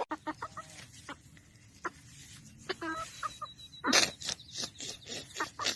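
Chicken clucking in short, scattered calls, mixed with a few sharp clicks.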